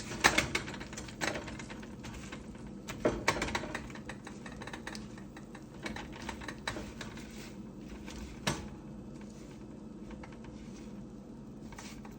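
Rapid clicking and clattering of kitchen utensils and cookware being handled, busiest in the first few seconds, with one sharp knock about eight and a half seconds in. A steady faint hum runs underneath.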